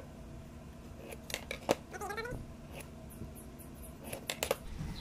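A cat meows once, briefly, about two seconds in. Sharp clicks and light scraping come from a steel try square and marking tool being handled on a wooden block, the loudest click just before the meow.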